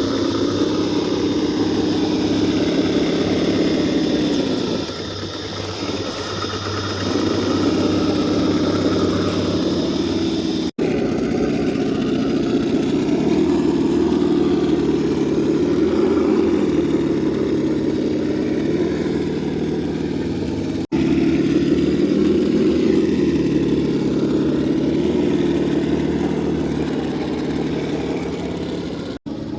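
Electric motor and gearbox of an Axial SCX10II RC rock crawler whining as it crawls, the pitch rising and falling with the throttle. The sound drops out abruptly a few times, as at edit cuts.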